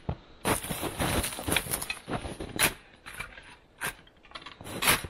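A wooden rabbit pen frame being set down and pressed into snow: irregular crunching and rustling, with a few sharp knocks of wood.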